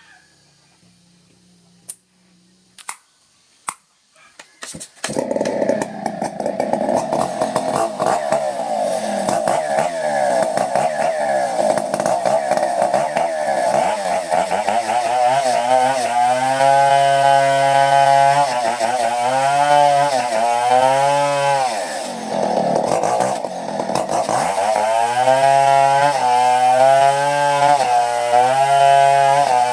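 A few sharp clicks, then a two-stroke chainsaw starts about five seconds in and runs. Its engine pitch repeatedly drops and rises as it is revved and loaded while cutting coconut wood.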